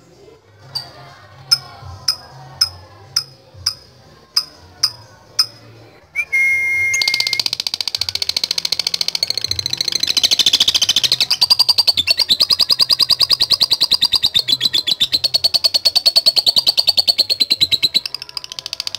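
Lovebird calling: sharp single high chirps about twice a second, then from about six seconds in a long, unbroken, very rapid chattering trill (the "ngekek panjang" long chatter).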